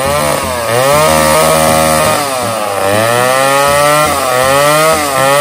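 Refurbished Poulan 306A chainsaw's two-stroke engine running after its rebuild, revved up and down several times on the throttle, its pitch dipping and climbing again with each blip.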